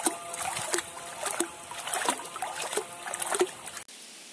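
Bare feet splashing and kicking in shallow pond water, a splash about every two-thirds of a second. It cuts off abruptly near the end into a steady hiss.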